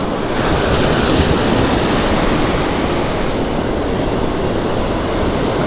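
Ocean surf breaking and washing up the beach in a steady rush, with some wind buffeting the microphone.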